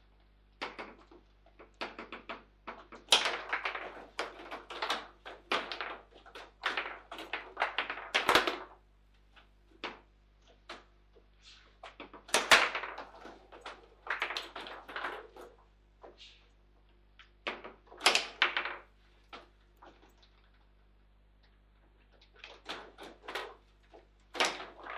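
Table football in play: quick, irregular knocks and clacks as the ball is struck by the figures on the rods and bangs against the table, coming in flurries with short pauses between them.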